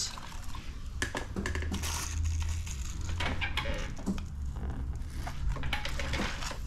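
Hand pump sprayer misting liquid in short hissing spurts, mixed with small clicks and crinkling from hands working wet paint protection film. A low steady hum runs underneath.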